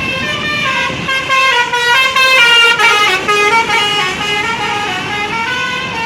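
Tour bus's 'telolet basuri' musical horn playing a quick tune, its pitch stepping from note to note several times a second, loudest between about one and a half and three and a half seconds in.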